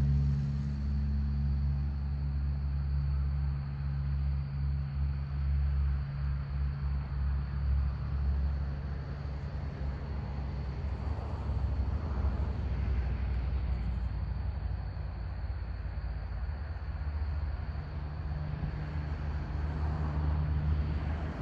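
A vehicle engine idling steadily: a low, even drone with a faint high steady whine above it.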